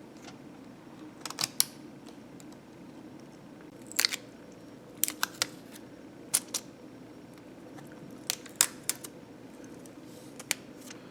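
Scattered sharp clicks and taps of small hard parts being handled inside an opened laptop, about a dozen of them, in small groups.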